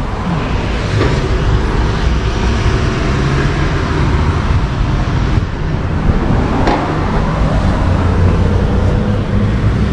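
Steady vehicle rumble with a continuous noisy hiss over it, and one brief sharp knock about seven seconds in.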